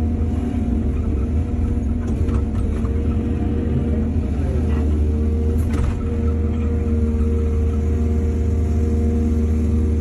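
Excavator's heavy diesel engine running steadily under load, its pitch dipping briefly about halfway, with a few faint knocks around two seconds in and again near six seconds.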